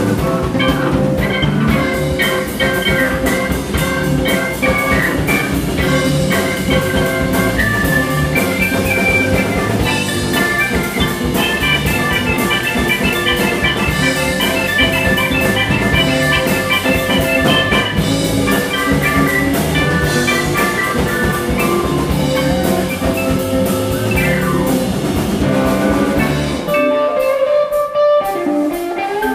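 Live bar band playing an instrumental rock passage: electric guitars, keyboard and drum kit, with fast runs of high notes. Near the end the drums and bass drop out for about two seconds before the band comes back in.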